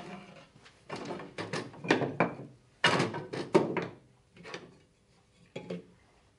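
Loose wooden parts knocking and scraping against each other and a wooden workbench as they are gathered and picked up, in several short clusters, the loudest near the middle.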